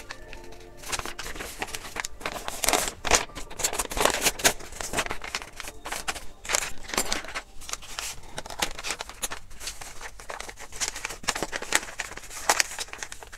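Stiff pattern paper rustling and crackling under the hands as it is folded and pressed flat, an uneven run of sharp crinkles.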